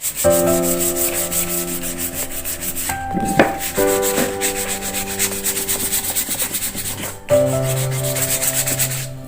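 Sandpaper rubbed on wood in quick back-and-forth strokes, with two short pauses, over background music with held chords.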